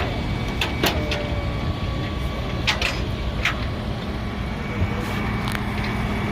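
A vehicle engine idling steadily, with a handful of sharp metallic clicks and clanks over it in the first few seconds.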